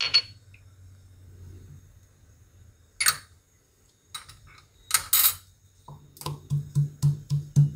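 Wooden pestle in a wooden mortar: a few scattered knocks, then steady pounding from about six seconds in, about three strikes a second, as green chillies and ginger are crushed to a paste.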